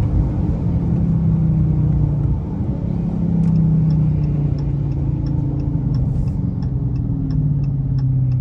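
Dodge HEMI V8 engine running, its note dipping about two seconds in and then picking up again. From about three and a half seconds in, a turn-signal clicker ticks about twice a second.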